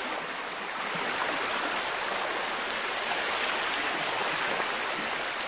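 Shallow river water rushing and riffling over stones and pebbles, a steady hiss of flowing water.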